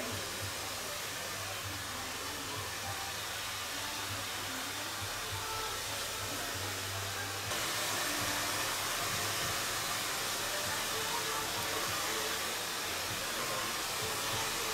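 A steady rushing noise, like air or water running, with a low hum under it. About seven and a half seconds in the hum stops and the noise gets brighter and a little louder.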